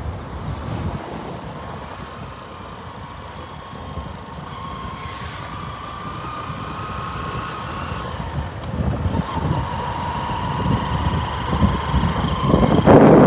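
Moving vehicle heard from on board: a steady low engine and road rumble with a faint, slightly wavering whine, growing louder over the last few seconds.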